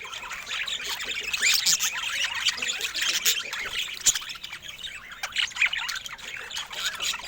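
Several budgerigars chattering and warbling without a break, a dense mix of overlapping chirps and short whistled glides with sharper calls now and then.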